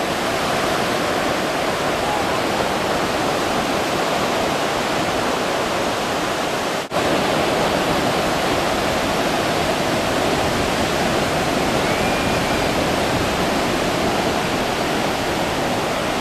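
Steady rush of breaking surf, even and continuous, cutting out for an instant about seven seconds in.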